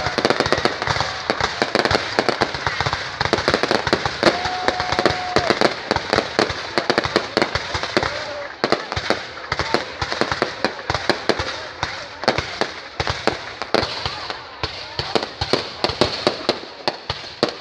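Fireworks crackling and popping in a rapid, dense string of sharp cracks, thinning out to more spaced pops about halfway through.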